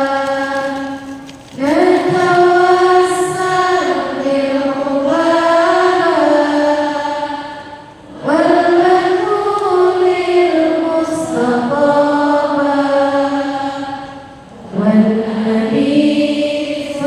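A woman's voice chanting in long, held melodic phrases with slow bends in pitch and no audible accompaniment. It pauses briefly for breath about 1.5 s, 8 s and 14.5 s in.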